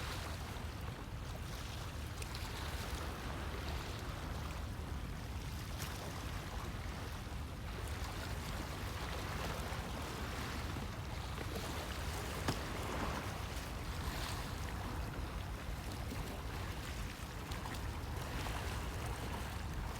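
Sea waves washing onto the beach: a steady wash of surf that swells every few seconds over a constant low rumble.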